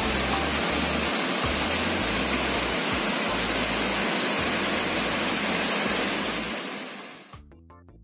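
Waterfall, a steady rush of falling water that fades out about seven seconds in, leaving quiet background music.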